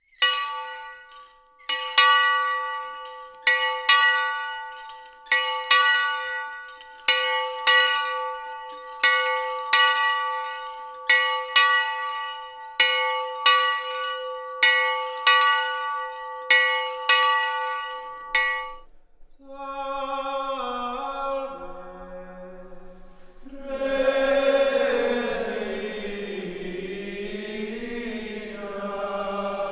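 A single small convent bell struck about twenty times in steady double strikes, each stroke left to ring out. Then a few men's voices begin a slow chant, and a fuller choir of friars joins in near the end.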